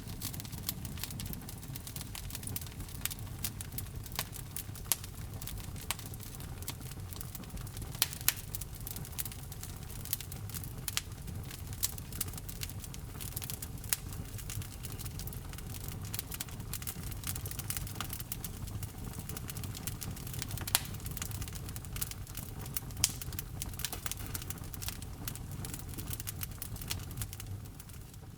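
Wood fire crackling in a fireplace: irregular sharp pops and snaps over a steady low rumble of the flames, fading out near the end.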